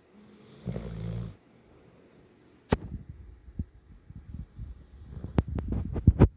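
A sleeping dog snoring: one long snore with a low buzz and hiss about half a second in, followed by a string of sharp clicks and low irregular rumbles that grow louder toward the end.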